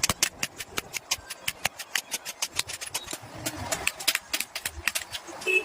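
Rapid hammer blows on metal while forging an axe, a quick, slightly uneven run of about five or six sharp strikes a second.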